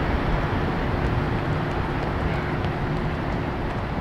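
Steady outdoor urban background noise: an even low rumble like distant traffic, with a faint steady hum.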